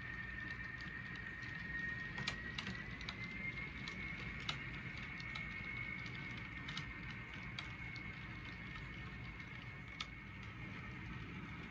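HO scale model freight cars rolling over track, with a low rumble and a handful of sharp clicks at irregular intervals as wheels cross rail joints, over a steady high whine that steps up slightly in pitch about three seconds in.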